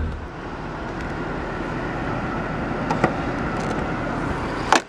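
The E63 AMG's 6.3-litre V8 idling steadily. A light click about three seconds in, then a sharp clack near the end as the hood's safety catch at the grille is released.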